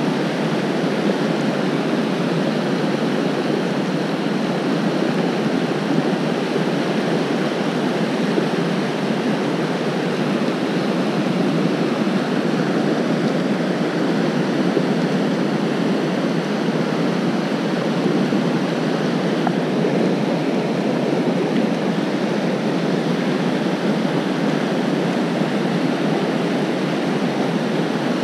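Steady rush of a fast river running over rocky rapids, an even, unbroken noise of moving water.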